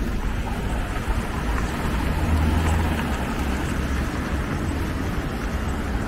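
Road traffic: a city bus pulling away close by and cars driving past, with a low engine rumble that swells around two and a half seconds in.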